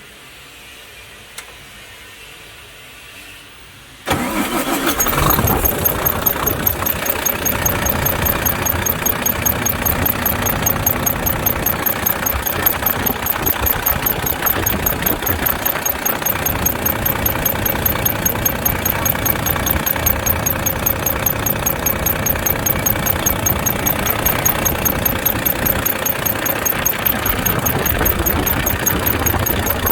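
Volvo FH13's 13-litre six-cylinder diesel engine starting about four seconds in and then idling, with a rapid, regular high-pitched squeak repeating several times a second: the squeak from under the valve cover that appeared after the rocker arms were replaced.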